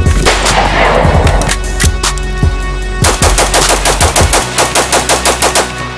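Saiga-12 semi-automatic 12-gauge shotgun firing: a few single shots in the first couple of seconds, then a fast string of about fifteen shots at roughly six a second that stops shortly before the end. Music plays underneath.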